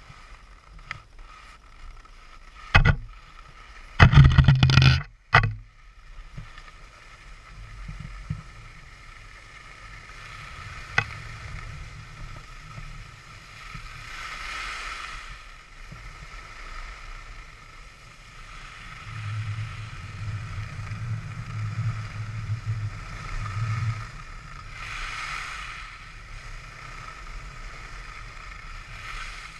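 Skis sliding and scraping over groomed snow on a downhill run: a steady rushing hiss that swells and fades with the turns. A few loud knocks come about three to five seconds in.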